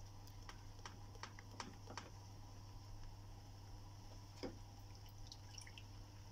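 Faint ticks and pops from thick masala gravy being stirred and simmering in a pan, a few in the first two seconds and the loudest single pop about four and a half seconds in, over a steady low hum.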